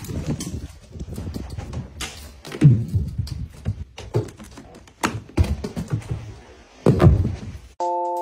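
Cats jumping onto and pushing off wall-mounted shelves: a string of irregular thumps and knocks, two of them heavier than the rest. Near the end the knocking stops and a bright chime melody begins.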